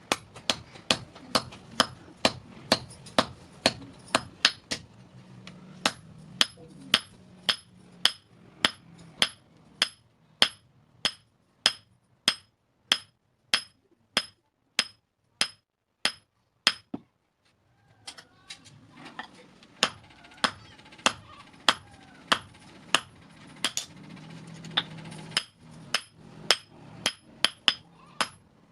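Hand hammer striking metal on an anvil in steady forging blows, about two a second, each with a bright metallic ring. The blows stop for about a second and a half just past the middle, then carry on.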